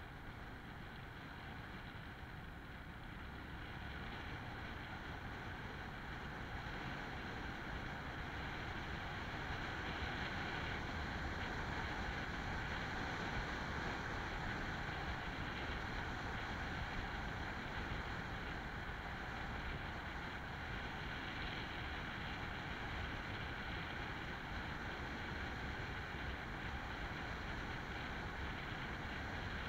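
Wind rushing over a helmet-mounted camera on a moving motorcycle, with the bike's engine and road noise underneath. It grows louder over the first several seconds and then holds steady.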